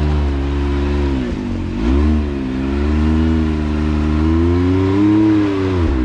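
Side-by-side UTV engine revving up and down under load as it climbs a rock ledge, with its revs dropping about a second and a half in and again near the end.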